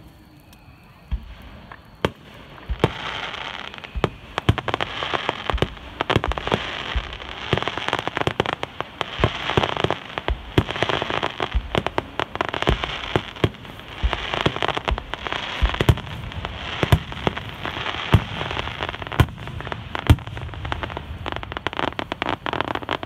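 Star mine fireworks barrage: a rapid, irregular run of shell launches and aerial bursts with crackling stars between the bangs. It thickens about three seconds in and cuts off suddenly at the end.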